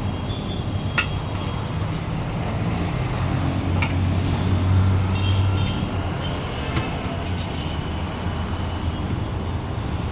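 Steady low engine rumble that swells about four to six seconds in, with a few sharp clicks over it.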